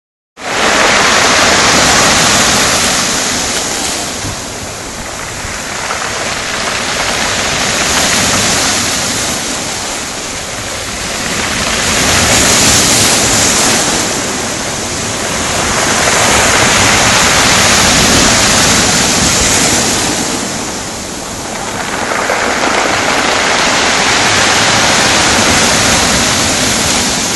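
Sea waves breaking and washing ashore, a loud continuous rush that swells and eases in surges about every five seconds.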